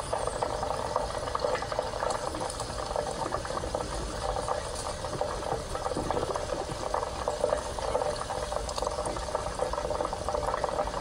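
Hot oil bubbling and crackling steadily in a pan as marinated pieces deep-fry.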